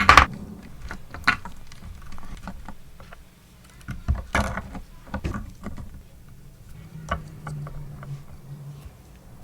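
Irregular clicks, taps and knocks of small tools and guitar parts being handled during a pickup change. The loudest knocks come right at the start and about four seconds in.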